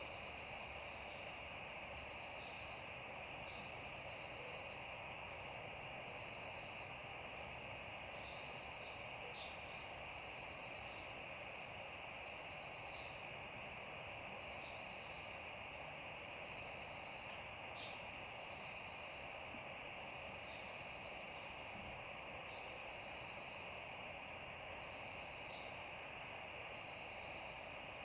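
Night chorus of crickets trilling steadily, with a higher chirp pulsing in an even rhythm over a constant soft hiss.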